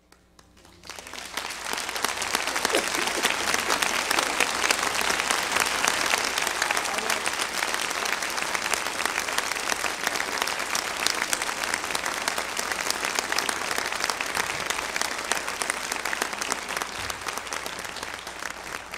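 Audience applauding, starting about a second in out of near silence and going on as steady, dense clapping that eases off a little near the end.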